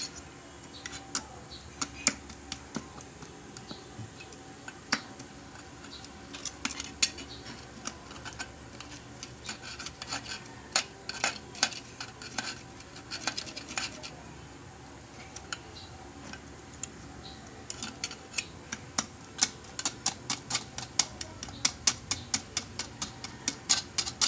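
Knife blade scraping and chipping old friction lining off the metal clutch plate of a high-speed sewing machine's clutch motor: a run of sharp metallic scrapes and clicks, scattered at first and coming quick and close together in the last six seconds or so. The lining is crumbled to bits, worn-out lining that has to come off before new lining is glued on.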